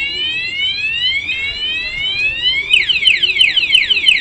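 Aftermarket motorcycle anti-theft alarm siren sounding, set off by the armed bike being moved. It sounds two slow rising whoops, then from a little past halfway switches to rapid falling chirps, about five a second.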